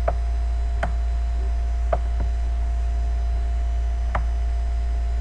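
Steady low electrical mains hum with a faint higher whine above it, and about five faint clicks spread unevenly through it.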